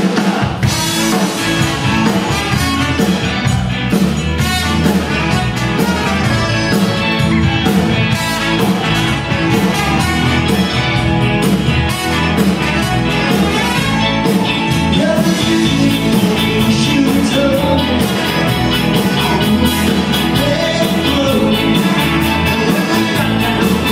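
A live Tex-Mex band plays an upbeat rock-and-roll number with electric guitars, button accordion, keyboard and drums, plus singing. The full band comes in all at once and keeps a steady, driving beat.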